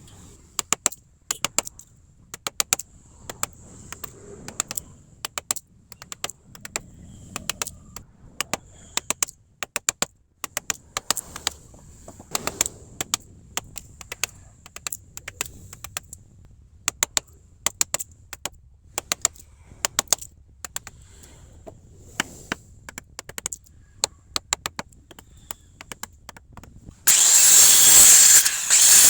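Sharp taps and knocks in quick clusters over a faint steady high whine, then a power tool starts up loudly about two seconds before the end, cutting wood.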